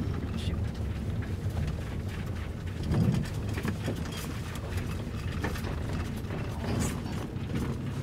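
Road noise heard from inside a car's cabin on a rough dirt road: a steady low rumble with scattered clicks and rattles, and a louder bump about three seconds in.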